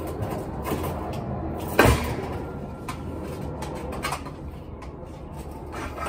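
A single heavy thump about two seconds in, with lighter knocks and scuffs around it, as heavy equipment is handled on a hand truck over concrete steps.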